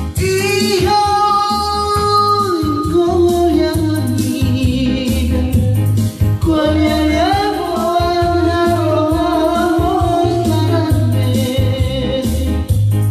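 A man singing into a microphone over an electronic keyboard accompaniment with a steady low bass beat. He sings two long phrases of held notes, sliding between pitches, with a short gap about halfway through.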